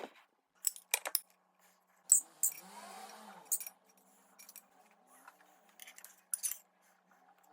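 A scattered series of light clicks and clinks from small hard objects knocking together, about ten in all, the sharpest about two seconds in.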